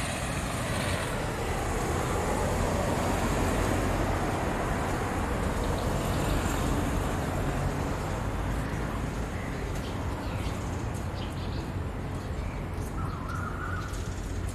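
Outdoor background noise: a steady low rumble like distant road traffic, with a short bird call near the end.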